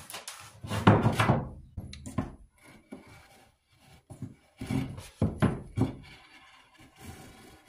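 Razor knife trimming dried glue squeeze-out from the edge of a glued red oak stave: short scraping cuts and wooden knocks against the workbench, the loudest cluster about a second in and another pair around five to six seconds.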